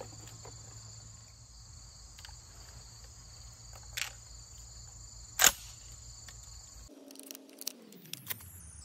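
Crickets chirping steadily while 12-gauge shells are thumbed into the tube magazine of an Aksa S4 semi-automatic shotgun, a Benelli M4 clone. There are sharp clicks about four and five and a half seconds in, the second the loudest, and a run of lighter clicks near the end. Near the end a low tone also slides down in pitch.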